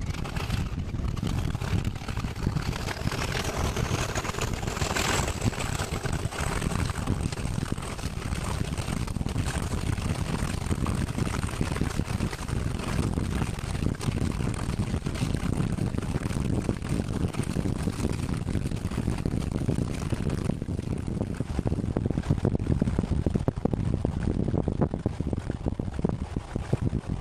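Class 37 diesel locomotive's English Electric V12 engine working hard under power, heard from an open window just behind it, with a high turbocharger whistle that rises in pitch over the first few seconds and then holds steady. Wind buffets the microphone over the rumble of the train.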